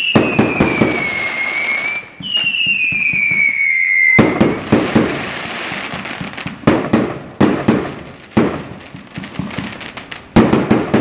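Aerial fireworks going off overhead: two long whistles, each sliding slightly down in pitch over about two seconds, then a string of sharp bangs with crackling between them.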